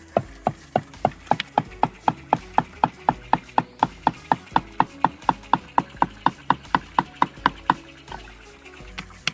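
Rapid, evenly spaced knocking with a ringing, woody tone, about four strikes a second, stopping about eight seconds in. Faint background music runs beneath it.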